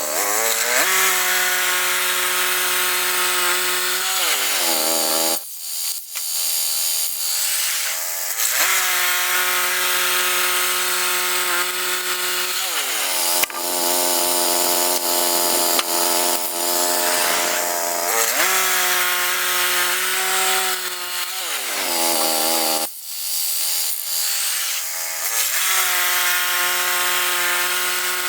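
Woodland Mills HM122 portable band sawmill cutting through a log on a newly fitted blade: the gas engine runs steadily under load over the hiss of the band blade in the wood, its note sagging and recovering several times.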